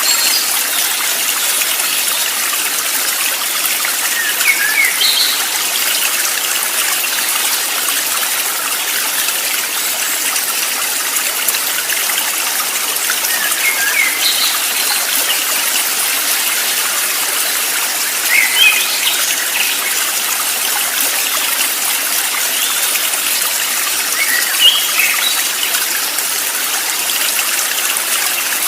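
Flowing stream water rushing steadily, with short bird chirps breaking in four times.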